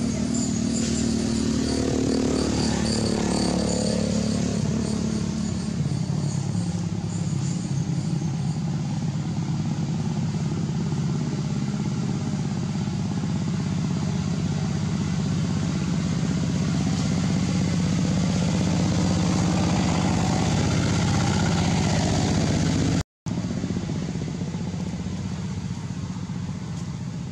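Motor vehicle engine running steadily with a low hum, its pitch sliding down about two to four seconds in. The sound cuts out briefly near the end.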